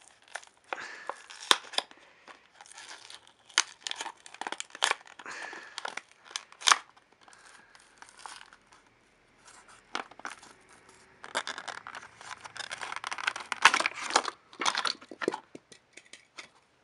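A toy car's cardboard-and-clear-plastic blister pack being torn open and crinkled by hand, in irregular rips and crackles. There is a lull in the middle, and the busiest, loudest stretch comes near the end.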